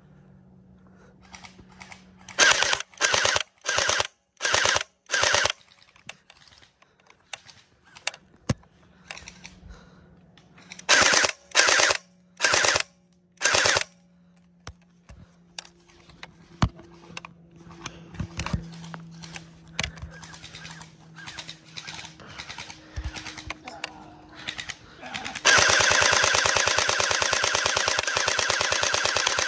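Electric gel blaster firing: five short bursts of rapid shots, a pause, four more short bursts, a few scattered single clicks, then a continuous stream of full-auto fire over the last four seconds.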